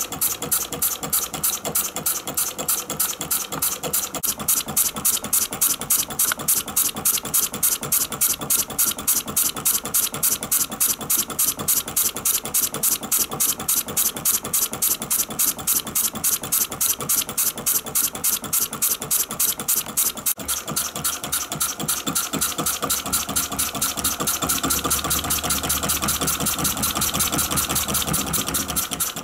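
Small horizontal direct-injection model diesel engine (20 mm bore, 40 mm stroke, kerosene and lamp-oil fuel) running steadily with a quick, even mechanical beat. Late on, the beat grows denser and a low rumble comes in.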